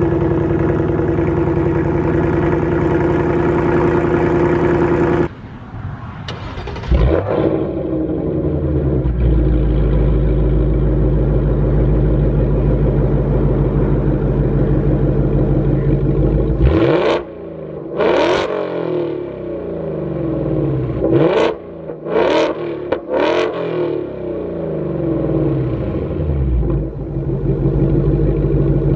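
2024 Ford Mustang GT's 5.0 L Coyote V8 through a Corsa Extreme active cat-back exhaust with a double X-pipe, fast-idling steadily on a cold start. About five seconds in it cuts off, and the engine is started warm, settles into a deep idle and is revved in several quick blips, two close together and then three more, each dropping back to idle.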